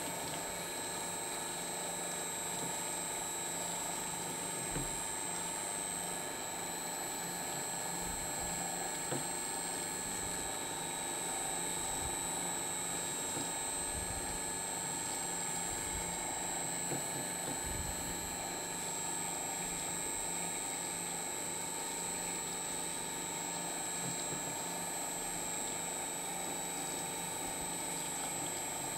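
Electric paper shredder motor running forward steadily, with a constant whine, its cutters gummed with sticky Stretch Armstrong goo soaked in hot soapy water.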